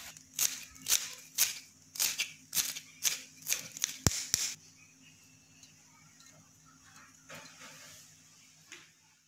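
A carrot being grated on a flat steel hand grater, rasping strokes about two a second that stop about four and a half seconds in. A single sharp click comes just after four seconds, followed by faint quiet background.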